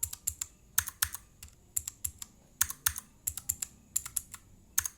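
Clicky blue-switch keys on a Digital Alliance mechanical keyboard being pressed in quick groups of two or three strokes, some keys bare and some damped by a piece of membrane-keyboard sheet under the keycap.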